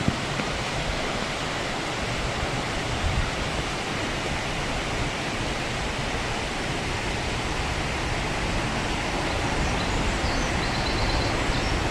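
River water rushing steadily over a low waterfall (a Latvian rumba) in spring flow, a constant even roar of falling water.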